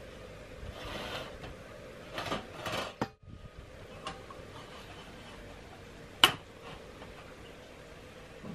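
Hands handling a baked tart shell and a metal tart pan on a wire cooling rack: scraping and rattling about two to three seconds in, then a single sharp click about six seconds in, the loudest sound.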